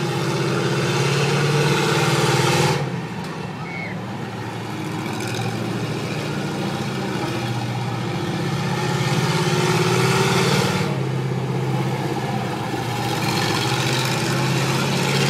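Monster truck engine running and revving across an open arena, swelling and falling with the throttle. It drops off sharply about three seconds in and builds again toward ten seconds.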